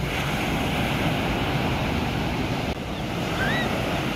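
Sea surf breaking and washing up onto a sandy beach: a steady rushing of waves. A few short high chirps come about three seconds in.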